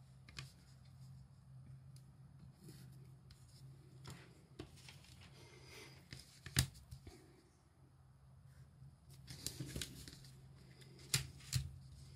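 Paper pattern pieces and a ruler being handled and shifted on a table, with light rustling and a few sharp taps and knocks, the loudest about two-thirds of the way through. A steady low hum runs underneath.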